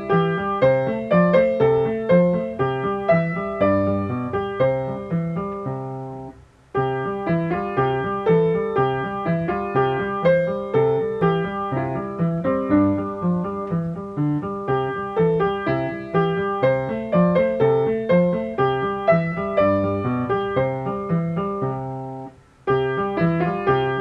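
Background music: a piano playing a steady run of notes, broken by two brief near-silent gaps, one about six seconds in and one near the end.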